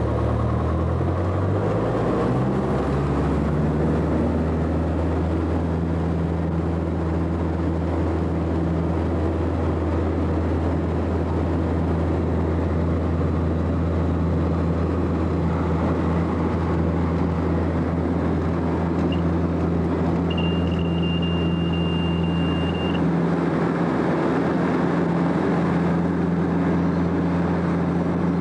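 Single-engine light airplane's piston engine and propeller heard from inside the cabin, rising in pitch over the first few seconds as power comes up, then running steadily at full power on the takeoff run. A steady high tone sounds for about three seconds past the middle.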